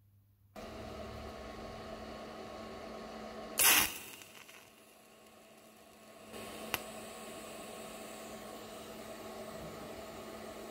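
Electric welder buzzing with a steady mains-type hum while welding a roller chain to the cylinder head. There is a loud burst about three and a half seconds in, a quieter stretch after it, and a sharp click near seven seconds.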